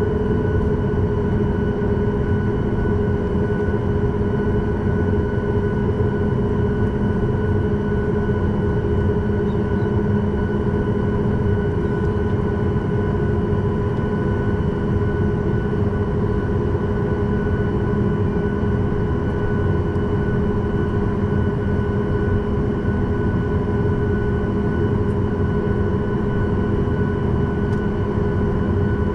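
Boeing 737 MAX 8's CFM LEAP-1B turbofan engines at idle thrust while the jet taxis, heard from inside the cabin over the wing: a steady rumble with several constant whining tones.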